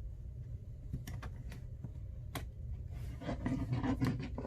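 Light handling of a phone and small repair tools on a workbench: a few sharp clicks and taps, then rubbing and scraping from about three seconds in, over a steady low hum.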